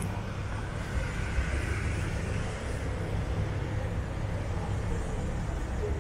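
Steady low rumble of city street ambience with road traffic.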